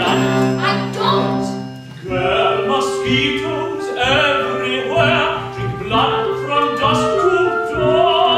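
A male opera singer singing with orchestral accompaniment.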